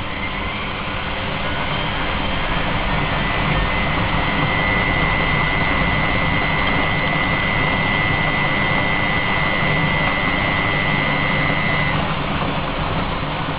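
Miele washing machine running on an easy care 30° half-load cycle: a steady whirring that grows louder over the first few seconds. A thin high motor whine joins about three seconds in and stops shortly before the end.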